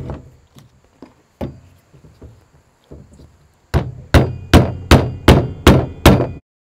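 Rubber mallet hammering the handles of a folding metal-frame garden stool into their sockets: a few light knocks, then about seven hard blows in quick succession, each with a brief metallic ring. The handles are a tight fit and need force to go in.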